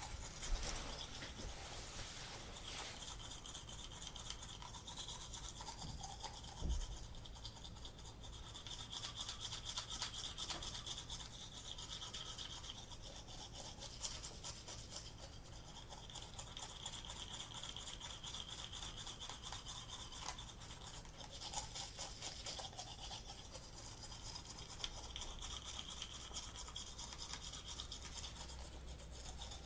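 Toothbrush scrubbing teeth with rapid back-and-forth strokes, the bristles rasping steadily in waves; a short low thump about seven seconds in.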